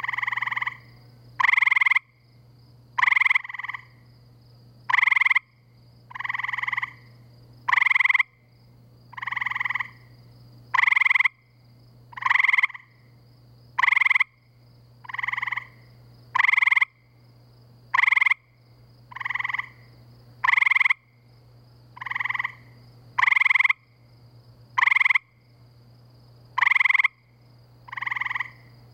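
Male gray treefrog giving its mating call: short musical trills repeated about every second and a half, some louder and some softer. A faint steady low hum runs beneath.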